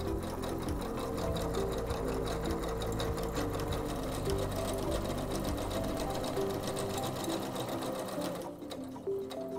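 SINGER C430 computerized sewing machine stitching a programmed decorative sequence of letters and flowers, the needle running fast and steady, then stopping on its own about a second before the end when the programmed stop is reached.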